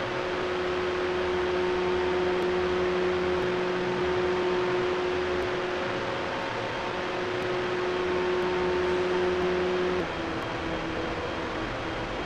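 Steady machinery hum with a few fixed tones over an even hiss, inside a large hall; about ten seconds in the tones shift slightly and it gets a little quieter.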